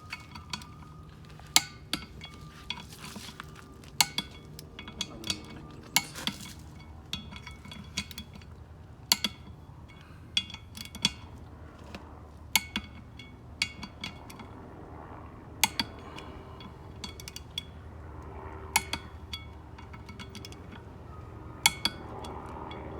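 Click-type torque wrench giving sharp metallic clicks with a short ring, roughly one every second or so and irregularly spaced, as bolts on a beadlock wheel are brought to a set torque.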